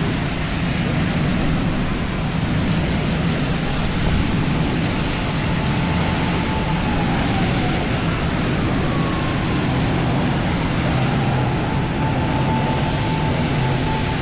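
Steady heavy rain hiss on a city street, with a faint siren wailing in the background from about five seconds in, its pitch holding and then falling away.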